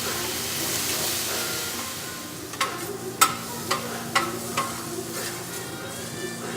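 Sliced peppers and onions sizzling on a hot grill, with a spatula striking and scraping the cooking surface about five times, starting around two and a half seconds in.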